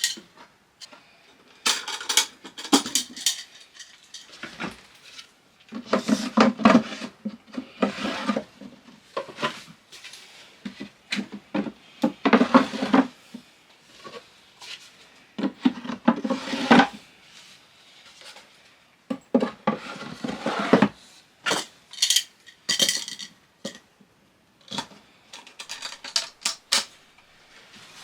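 A small metal latch being fitted and tried on a plywood chest: irregular metallic clinks, clacks and rattles of the hardware, with knocks against the wood, in clusters a second or two apart.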